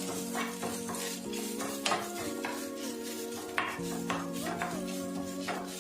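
A spatula stirring coconut frying in coconut oil in a pan, with a light sizzle and repeated sharp clicks of the spatula against the pan. Background music with held notes and a slow melody plays throughout.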